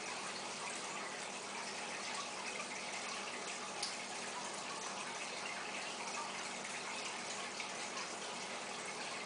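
Steady bubbling and trickling of water from an aquarium's aeration and filter equipment, with one short click a little before halfway.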